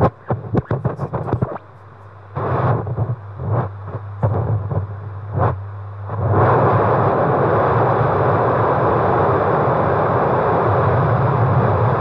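Terumo UTD-5A ultrasonic fetal Doppler's speaker output: scratchy crackles and irregular whooshing pulses as the probe is moved, giving way about six seconds in to a steady, loud whooshing hiss.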